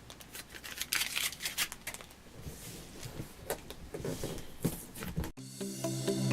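Packaging being cut and handled: a run of sharp snips and rustles. Electronic music cuts in suddenly about five seconds in.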